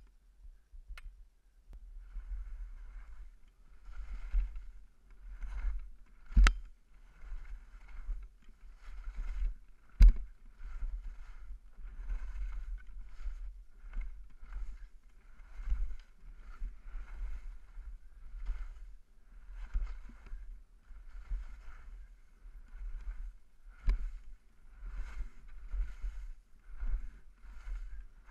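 Skis scraping and swishing on soft snow in quick rhythmic turns through moguls, about one turn a second, over a steady low rumble. Two sharp knocks stand out, about six and ten seconds in.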